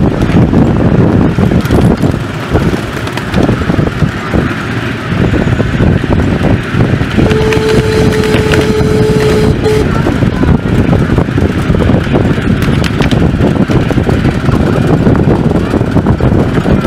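Miniature live-steam locomotive, a 7¼ inch gauge model of a GWR 38xx 2-8-0, running with its train, a loud steady rumble of wheels on the track. About seven seconds in, its whistle sounds one steady note for about two and a half seconds as the train nears a level crossing.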